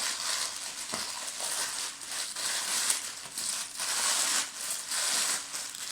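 Packaging crinkling and rustling in irregular swells as a parcel is unpacked, with a few small clicks.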